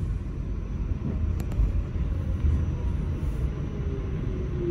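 Low rumble of an R46 subway car's wheels on the rails, heard from inside the car as the train pulls into a station. A sharp click about a second and a half in, and near the end a tone that falls slowly in pitch as the train slows to a stop.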